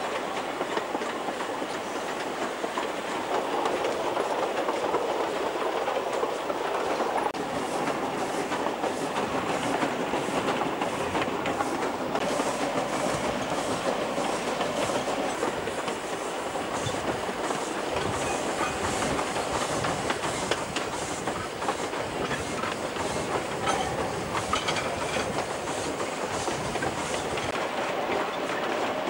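Ex-Queensland Railways D17-class steam locomotive running along narrow-gauge track, heard from on board the engine: a steady rumble and clatter of wheels and running gear, with a regular beat of about two a second through the middle stretch.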